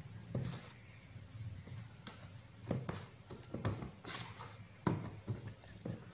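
Hands kneading and pressing a raw chicken piece into dry seasoned flour on a stainless steel tray to coat it: soft, irregular pats and knocks with a faint rustle of flour.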